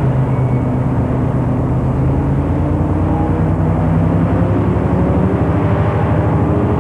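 EMD SW1200 switcher locomotive's V12 567-series diesel engine running with a fast, even beat as the locomotive moves. Its pitch rises slightly in the second half.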